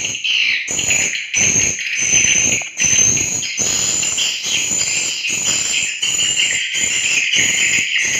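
Swiftlet calls repeating in an even rhythm, about two chirps a second, high and twittering, the constant calling heard inside a swiftlet nesting house.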